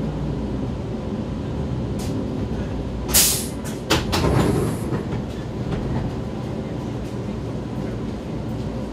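A Vienna U-Bahn U2 train comes to a stop in a station, heard from inside the car: a steady low rumble, then a loud burst of hissing about three seconds in. About a second later comes a sharp click and a second, longer hiss.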